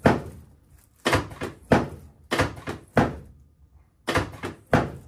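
Chiropractic drop table giving a quick series of about seven sharp thunks as its raised padded sections drop under the chiropractor's thrusts on the patient's back, each thunk dying away quickly.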